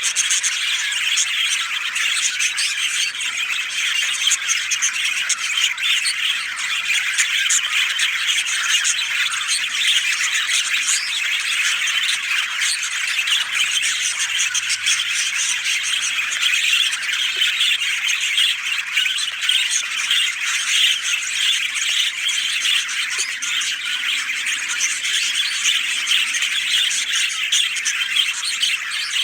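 Dense, steady chorus of many birds chirping together, a busy outdoor bird ambience.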